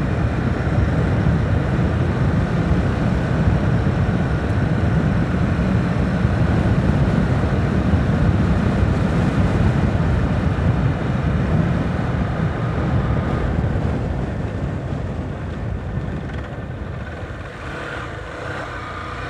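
Motorcycle riding along a highway: steady wind and road rush with the engine running underneath, growing quieter over the last few seconds as the bike slows.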